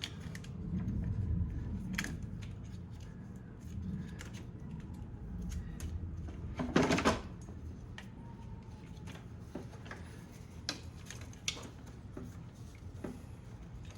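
Hand work inside a car door: scattered light clicks and knocks as wiring clips are pried loose, with one louder clack about halfway through.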